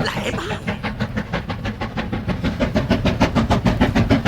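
A rapid, even rhythmic clatter of about eight beats a second, growing louder toward the end.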